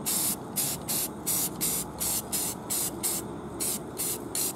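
Aerosol can of Rust-Oleum Camouflage Earth Brown flat spray paint sprayed in short, quick bursts of hiss, about three a second.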